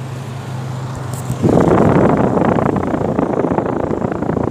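Central air-conditioner outdoor condenser unit running with a steady hum. About a second and a half in, a loud rush of air starts as the fan's exhaust blows across the microphone held over the top grille.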